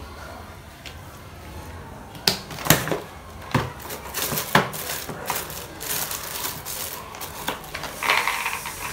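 A plastic jar handled and its lid opened with a few sharp clicks and knocks, then peanuts rattling against the plastic as they are shaken out of the jar.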